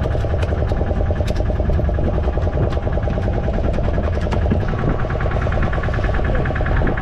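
A fishing boat's engine running steadily, with a few sharp clicks or knocks in the first half.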